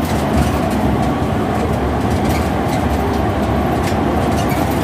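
Inside a city bus running at highway speed: steady engine and road noise, with faint rattling ticks.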